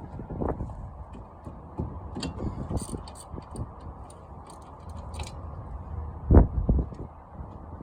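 Hand tools working the hub's mounting bolts on a Jeep XJ: a socket wrench on a 1/2 inch bolt, with scattered metallic ticks and clinks. A heavier metal clunk comes about six and a half seconds in, followed by two or three smaller knocks.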